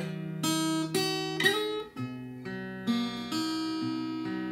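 Fender acoustic-electric guitar fingerpicked in a slow melody, single notes plucked about twice a second and left ringing into one another.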